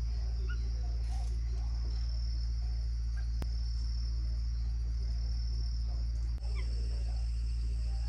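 Steady high-pitched insect drone of a tropical forest over a deep steady hum, which is the loudest thing, with a few faint, short bird notes and two brief clicks.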